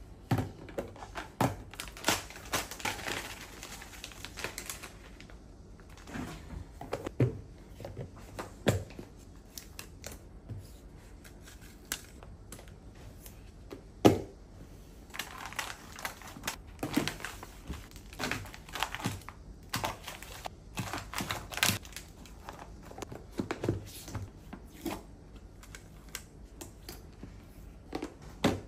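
Pink plastic freezer storage containers handled on a countertop. Lids are pressed and clicked shut and the boxes knock as they are set down, at an irregular pace, with stretches of rustling in between.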